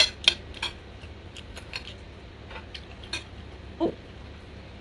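A metal spoon and fork clinking and scraping against a plate as food is cut and gathered: about a dozen irregular sharp clinks. A short pitched sound comes about four seconds in.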